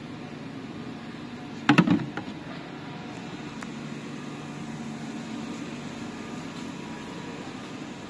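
Steady hum of machinery running in a plastic recycling plant, with a short loud clatter of several knocks about two seconds in.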